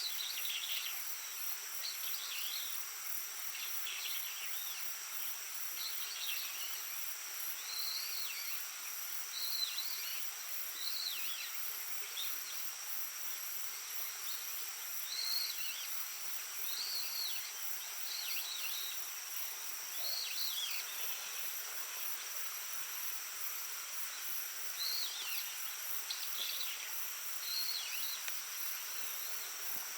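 A steady, high shrilling chorus of insects, with short falling chirps repeating every second or two, over the soft murmur of a stream.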